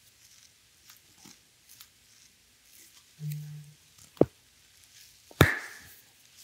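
Two sharp knocks a little over a second apart during a hand massage, preceded by a brief low hum.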